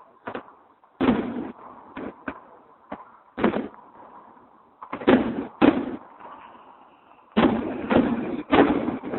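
Fireworks exploding as a series of loud, sharp bangs, spaced out over the first few seconds and then coming in a quick run near the end.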